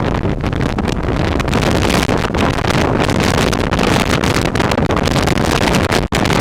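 Hurricane wind buffeting the microphone in a loud, continuous rumbling roar that cuts out for an instant near the end.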